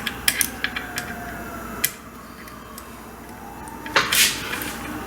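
Hand tools clicking and clinking on metal, a few sharp ticks in the first two seconds, as an Allen key is worked at a bolt in the engine bay, followed by a short scraping rasp about four seconds in.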